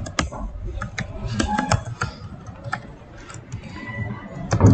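Computer keyboard being typed on: irregular, unevenly spaced key clicks as a few characters are entered.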